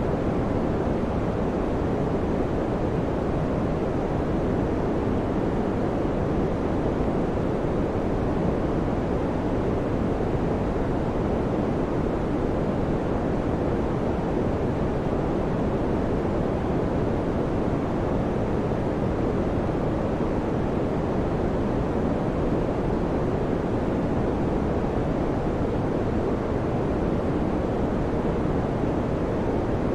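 Electric fan running steadily: an even, deep rushing noise that never changes.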